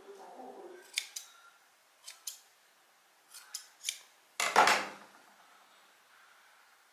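Large steel scissors snipping thread fibres as a yarn pompom is trimmed: several short, sharp snips, often in quick pairs. About four and a half seconds in comes a louder clunk as the scissors are laid down on the table.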